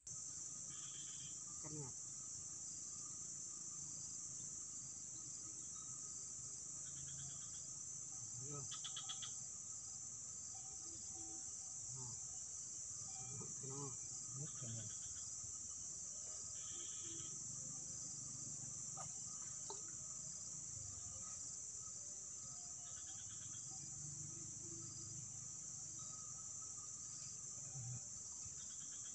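A steady, high-pitched chorus of insects, with short bursts of rapid chirping now and then.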